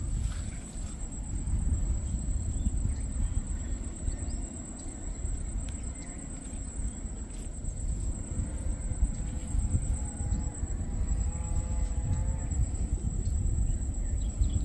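Steady high-pitched insect trill over a low rumble of wind on the microphone.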